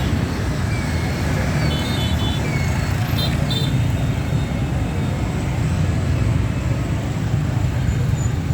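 Steady road traffic noise with a low rumble of engines, and a few short high-pitched beeps about two to three and a half seconds in.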